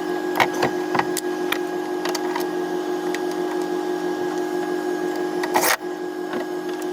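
A/C vacuum pump running steadily with an even electric-motor hum while it evacuates the van's air-conditioning system. A few light metallic clicks and taps of tool work come over it in the first couple of seconds.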